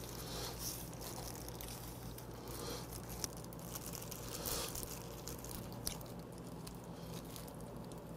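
Plastic-gloved hands tearing cabbage kimchi apart into strips: faint wet squishing and tearing with a few soft clicks, over a low steady hum.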